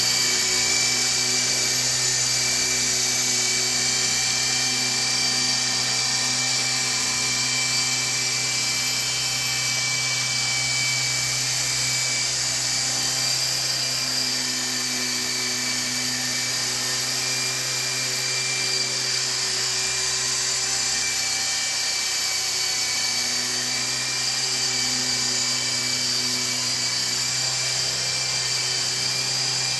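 Nano Lama micro RC helicopter in flight: its small electric motors and rotors give a steady high-pitched whine, with slight swells in pitch as it manoeuvres.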